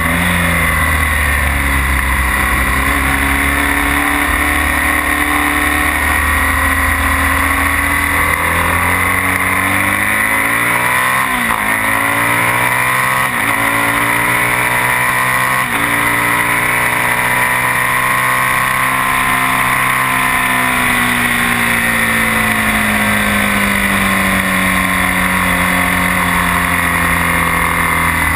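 BMW R1200S's boxer-twin engine running hard on track under heavy wind rush: its pitch climbs and drops sharply several times a little before halfway as it is shifted up through the gears, then rises again and falls slowly near the end as the bike slows for a corner.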